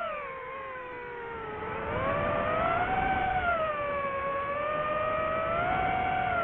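DJI FPV drone's electric motors and propellers whining, the pitch changing with throttle. The whine drops sharply at the start, climbs again about two seconds in, then wavers up and down.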